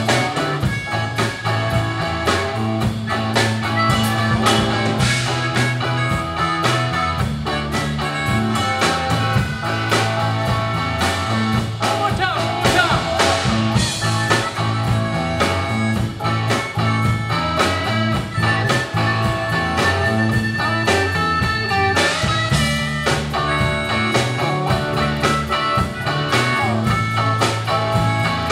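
Live blues-rock band playing: a harmonica blown into a microphone over electric guitar, bass guitar, keyboards and a steady drum beat.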